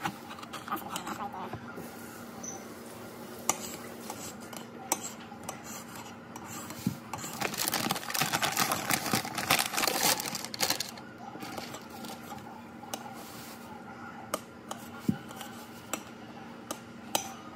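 A serrated kitchen knife slicing sausage on a ceramic plate, the blade clicking against the plate again and again at irregular moments. A louder rough, scraping noise runs for a few seconds in the middle.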